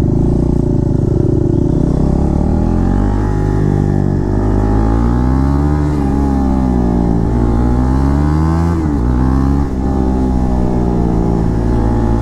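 Motorcycle with a loud aftermarket exhaust accelerating on the road. The engine note climbs, drops at a gear change about six seconds in, climbs again, and drops once more near nine seconds before settling into steady cruising.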